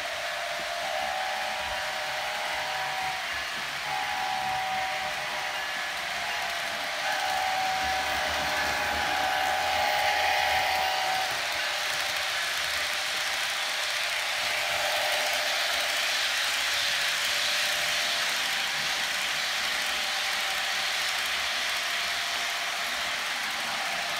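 The onboard sound decoder of an HO scale Bachmann NS 1066 heritage SD70ACe model diesel, playing through its small speaker: several multi-tone horn blasts in the first ten seconds or so over a steady hissy diesel engine sound. The model then runs along the track.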